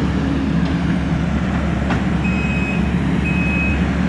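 Heavy construction machine's engine running steadily under load, with a backup alarm starting to beep a little after two seconds in: three beeps about a second apart, the machine reversing.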